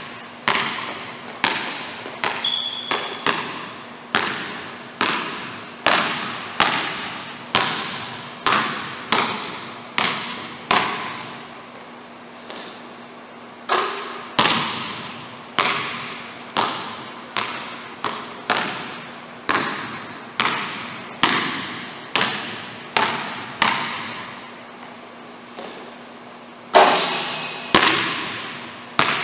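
A basketball bouncing on a hardwood gym floor in steady strikes a little faster than one a second, each ringing out in the echo of a large, empty gym. The bouncing stops briefly just before halfway, and there is a louder hit near the end.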